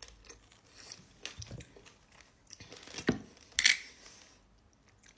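Handling sounds from food on a plate and a bottle of pomegranate molasses: scattered small clicks and crinkles, with two louder sharp knocks about three and three and a half seconds in as the bottle is tipped.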